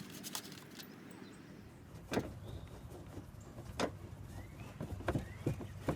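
Several sharp clicks and knocks from hands and tools working on the van's front-end plastic and fasteners, about 2, 4 and 5 seconds in, over a low steady background, with a few short rising chirps near the end.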